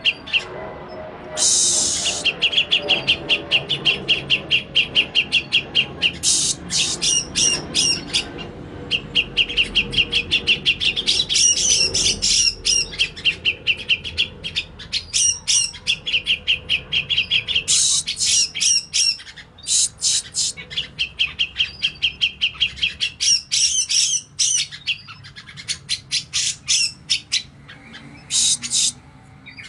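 Grey-cheeked bulbul (cucak jenggot) calling: long runs of fast, harsh chattering notes, each run lasting a few seconds, with short pauses between them.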